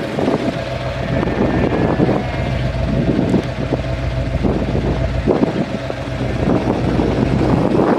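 A vehicle engine running steadily, with irregular gusts of wind noise on the microphone.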